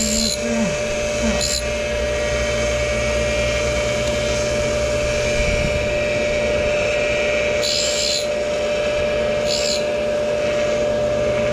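Tool and cutter grinder running steadily with a constant whine while its dish wheel sharpens the teeth of a milling cutter on its arbor. Four brief high hisses sound as the wheel grinds against a tooth: near the start, about a second and a half in, about eight seconds in and about ten seconds in.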